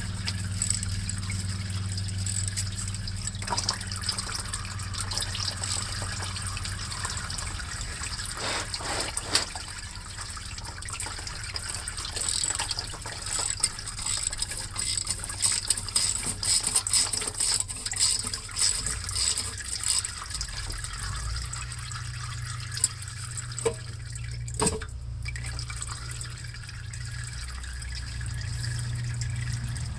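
Automatic transmission fluid draining out of a GM 4T65 transmission pan, pouring and splashing unevenly, with a few sharp knocks. A steady low hum runs underneath.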